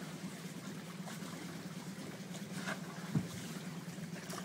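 A small boat's engine runs with a steady low hum as the boat moves along, with a single sharp knock about three seconds in.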